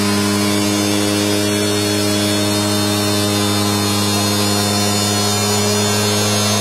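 AOKE DCZ70 CNC flatbed cutter running: a steady electric hum with a buzz, holding one pitch.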